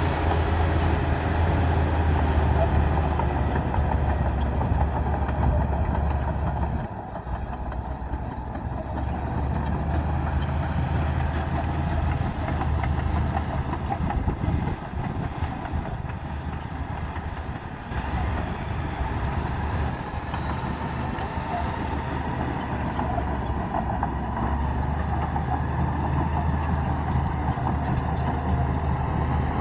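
Komatsu D60P bulldozer's diesel engine running steadily, easing off briefly about seven seconds in and again near eighteen seconds before pulling back up.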